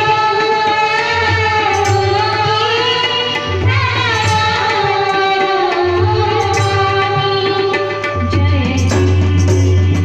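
A girl singing a gliding, held Indian melody over instrumental accompaniment with low tabla-like drum beats.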